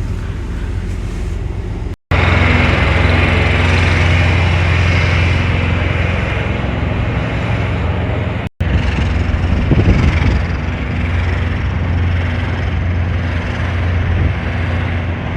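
Blizzard wind blowing hard, with a semi truck's engine running underneath as a steady low hum. The sound cuts out abruptly twice, about two seconds in and again past the middle.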